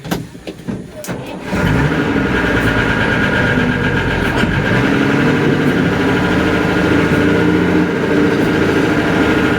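An engine starts about a second and a half in after a few uneven knocks, then runs steadily.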